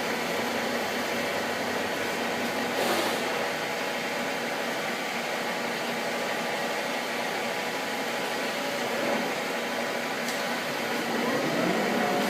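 Gisholt 3L saddle-type turret lathe running under its main motor, a steady hum of spindle and gear train. A brief hiss comes about three seconds in.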